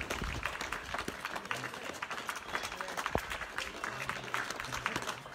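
Applause from many people clapping, scattered and continuous.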